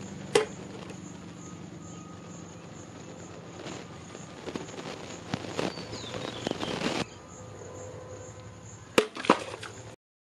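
Large knife blade chopping through water-filled plastic bottles: sharp cracks and knocks, the loudest a close pair near the end, over a steady low hum.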